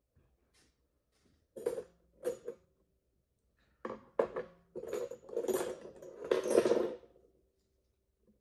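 Metal surgical instruments clinking and rattling as they are handled and set down: a few sharp clinks about a second and a half in, then a longer run of clattering from about four to seven seconds in.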